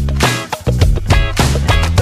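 Background music: an upbeat guitar track with a bass line and a steady beat.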